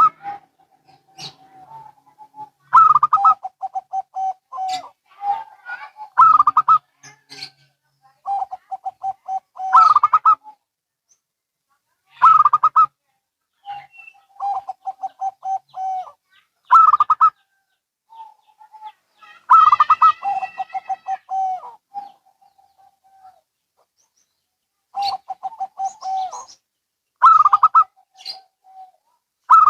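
Zebra doves (perkutut), local and Bangkok-type birds, cooing back and forth. Each phrase is a higher opening note followed by a quick run of lower, rolling coos, repeated every few seconds.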